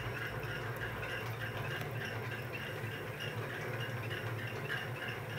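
Quiet room tone: a low steady hum with faint background noise.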